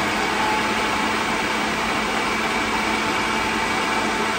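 Two-speed countertop blender running steadily on its low setting, blending a batch of basil pesto.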